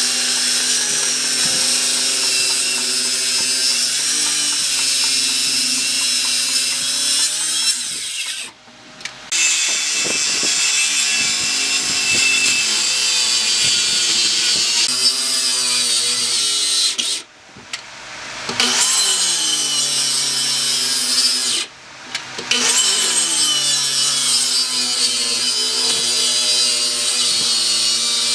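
Maktec electric circular saw cutting across the top of a log section, its motor whine dipping and recovering as the blade bites into the wood. The sound stops abruptly three times, and after the last two stops the whine rises again as the motor spins back up.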